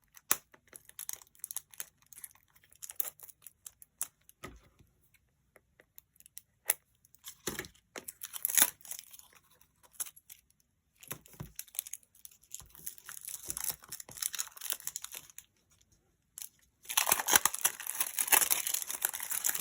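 Plastic shrink wrap being torn and crinkled off a small box of die-cut paper pieces: scattered ticks and crackles, then a dense, louder stretch of crinkling near the end.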